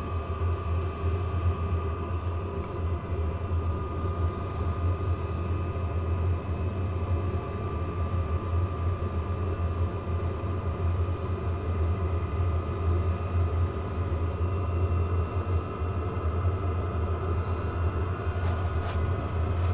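12-volt WIPPRO diesel air heater running steadily, with its blower and burner giving a low rumble under a steady whine. It is warming up and just starting to blow warm air, running without its exhaust muffler, and no fuel pump ticking is heard.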